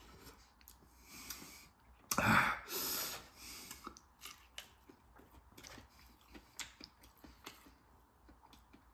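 A man breathing out hard through his mouth, two loud hissing exhales about two seconds in, against the burn of Carolina Reaper–spiced chicken. He then chews another bite, with soft scattered mouth clicks.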